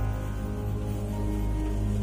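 Background music of slow, sustained chords.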